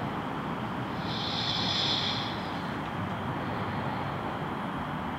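A woman's slow, audible nasal breath, one long breath starting about a second in, as she rests with normal breathing between rounds of kapalabhati. Under it runs a steady background rush.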